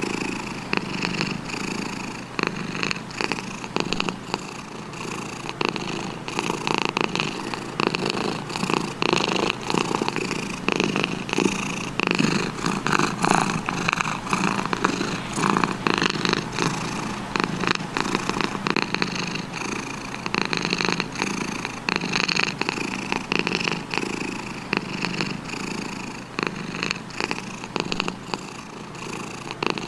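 Domestic cat purring continuously, close up: a rapid rumbling pulse that swells and fades every second or two.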